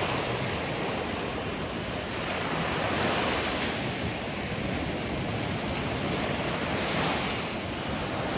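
Sea surf washing in, a steady rush of waves that swells and eases every few seconds.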